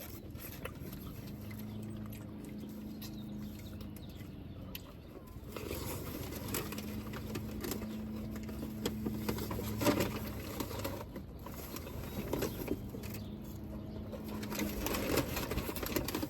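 People eating subs and fries: faint chewing and mouth clicks with occasional small knocks, over a low steady hum that fades in and out.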